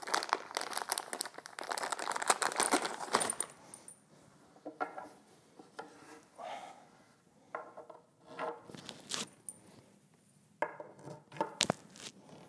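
Plastic bags of metal bolts and nuts being handled: crinkling plastic with metal hardware clinking, for about three seconds. A few sharp clicks and knocks follow near the end.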